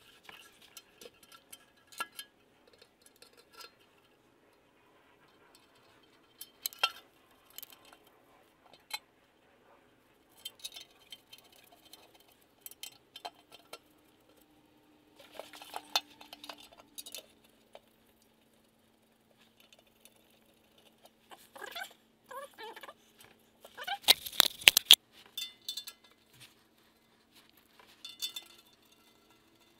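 Scattered light metallic clicks and clinks as a lower oil pan is set onto the upper pan and its bolts are fitted, with a louder spell of clatter about 24 seconds in.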